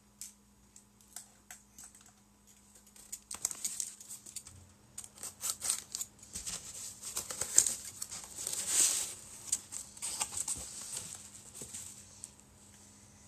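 Small cardboard shipping box being handled and opened with a box cutter: irregular scrapes, clicks and rustles of cardboard and tape, sparse at first and busiest in the middle, with a longer tearing rasp about nine seconds in.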